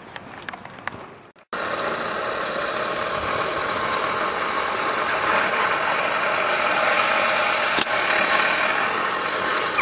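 Battery-powered lure coursing machine running: a steady whir from its motor and the line running over the rollers, which starts abruptly about a second and a half in.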